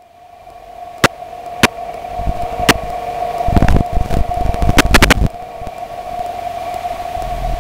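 Cockpit intercom feed of a Tiger Moth taxiing on grass: a steady hum that fades in at the start, with a few sharp clicks and a run of low bumps in the middle.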